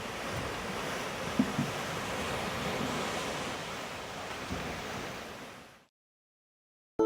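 Steady rushing noise with a few soft low knocks about a second and a half in, fading out to silence near the end.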